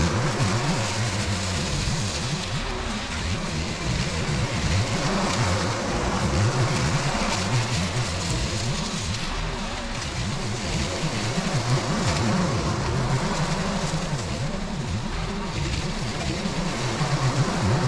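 Petrol walk-behind push mower running steadily while cutting long, dry grass.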